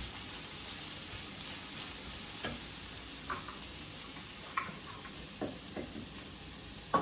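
Chopped walnuts frying in a pan with a soft, steady sizzle. A utensil stirring them knocks against the pan half a dozen times, the last knock the sharpest.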